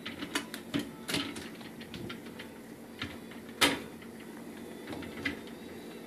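Scattered clicks and knocks of a GE Profile dishwasher's wire rack and its small fittings being handled and taken apart. The loudest knock comes about three and a half seconds in.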